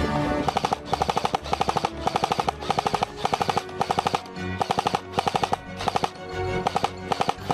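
Airsoft gun firing in short rapid bursts of full-auto shots, with brief pauses between bursts.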